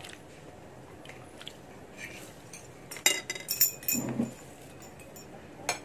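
Cutlery clinking against a dinner plate: a quick cluster of ringing clinks about three seconds in, and one more near the end.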